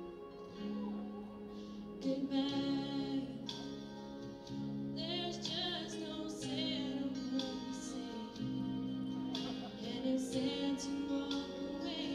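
A young woman sings a song into a microphone over instrumental accompaniment, holding long notes, some with vibrato.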